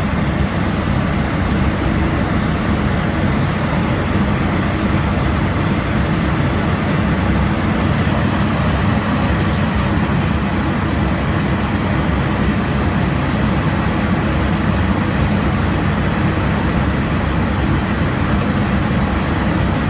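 Steady rumble of airflow and engine noise inside an aircraft's cockpit in flight, heaviest in the low range.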